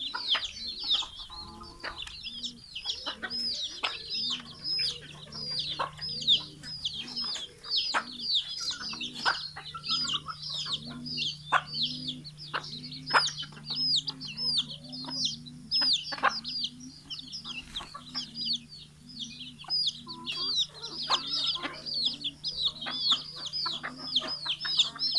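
A flock of chickens calling at feeding time: many young chickens peeping rapidly and continuously in high notes, over the repeated lower clucking of hens.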